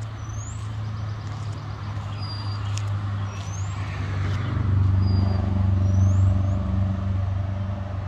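A vehicle engine running as a steady low drone that swells louder about halfway through and eases off near the end, with a few short high chirps above it.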